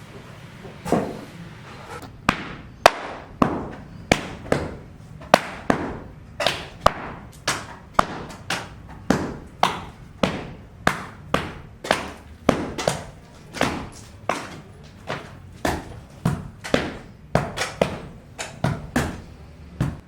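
Steady hammering, nearly two strikes a second, each blow ringing briefly.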